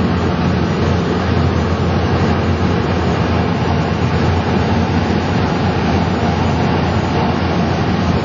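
Cessna 208 Caravan single-engine turboprop plane flying low overhead, its engine and propeller running steadily.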